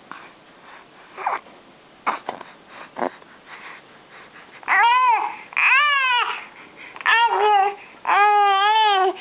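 A baby vocalizing: a few faint short sounds, then from about halfway on four loud, drawn-out cries or squeals, each rising and falling in pitch.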